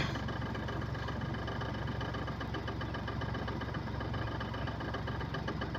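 A vehicle engine idling steadily with a fast, even pulse. A brief click right at the start.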